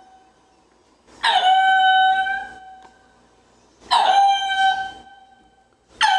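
Ring-tailed lemur calling: three long calls about two seconds apart, each starting sharply and settling onto a held, steady note before fading. The last call begins near the end.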